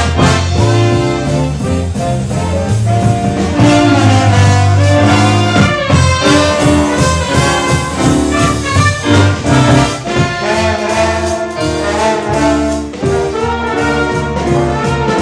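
A band playing brass-led music with trumpets and trombones over a steady drum beat.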